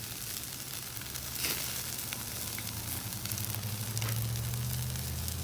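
Chicken thighs sizzling on a Santa Maria grill grate, with fat dripping onto the glowing charcoal embers and a couple of sharp pops, over a steady low hum.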